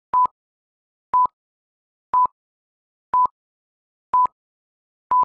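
Film-leader countdown beeps: six short, identical high beeps, one each second, each starting and ending with a faint click, with silence in between.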